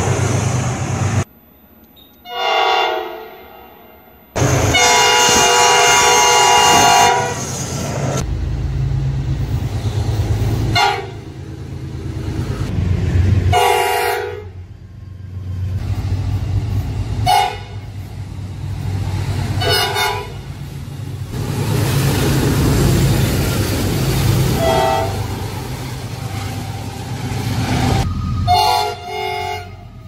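Diesel freight locomotive horns sounding multi-note chords: one long loud blast, then a series of short toots, heard across several joined clips with abrupt cuts. Between the horn blasts runs the low rumble of the passing locomotives and their train.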